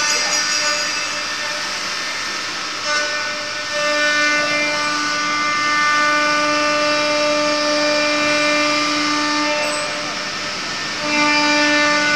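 CNC wood router running: the spindle and axis motors give a steady whine with several held tones over a cutting hiss. It gets louder about four seconds in, eases near ten seconds and swells again about eleven seconds in as the machine's moves change.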